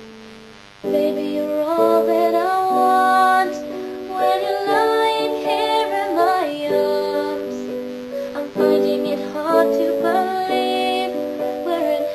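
Instrumental break of a pop ballad's backing music: a held keyboard chord fades out, then about a second in a new phrase of sustained chords with a melody line over them begins.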